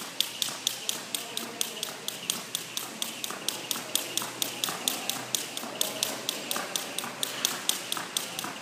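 A jump rope striking the floor in fast, even double unders, about four sharp slaps a second, two for each jump.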